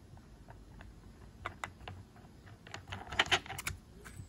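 Small metallic clicks and taps from an angle grinder's flange lock nut being threaded by hand onto the spindle over a cutting disc, with a quick cluster of rattling clicks about three seconds in.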